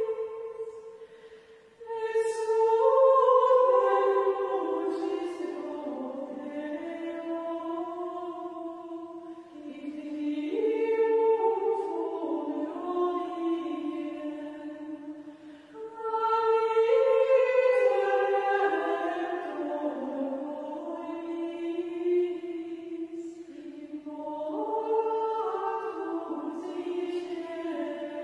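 Benedictine nuns singing Gregorian chant unaccompanied in unison: one flowing melody of women's voices, sung in long phrases with short breaths between them.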